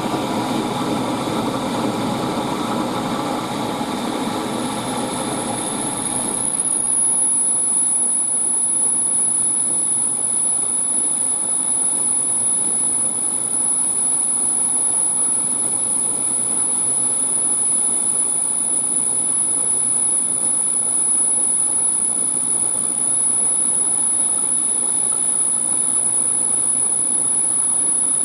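Machine tool running and drilling a tapping hole in a brass bracket: a steady machine sound, with a thin, high, steady whine that comes in about four seconds in and holds.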